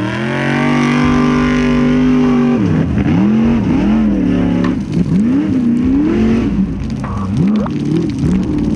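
Formula Offroad car's 434 cubic-inch small-block V8 at full throttle on a hill climb. The engine note rises and holds high for the first couple of seconds, then swoops up and down again and again as the throttle is worked.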